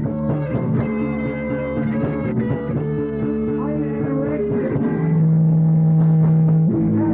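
Live rock band playing a song, with a long chord held from about five seconds in that changes to new notes near the end.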